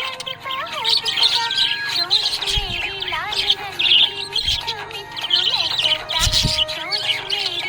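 Budgies chirping and twittering rapidly and continuously, over a song playing in the background.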